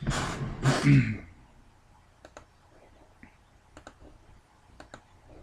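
A short breathy exhale with a little voice in it at the start, then a few sharp, isolated clicks spaced about a second apart.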